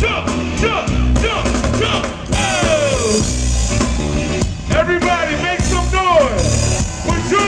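Live funk band playing loudly: a heavy bass and drum groove with swooping lines that glide up and down in pitch, and voices over the top.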